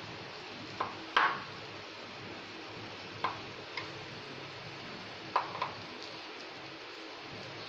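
A steel spoon clinking and tapping as vegetable filling is spread over rolled-out dough: about six short knocks in three pairs, each with a brief ring, the loudest about a second in.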